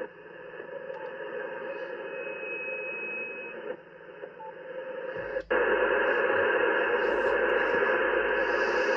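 Yaesu FT-710 transceiver receiving in upper sideband: a steady hiss of band noise from its speaker, with a faint steady whistle for about a second and a half. About five and a half seconds in, the audio drops out for a moment as the band changes from 18 MHz to 28 MHz, and a much louder rush of noise follows, a pretty bad noise on the band.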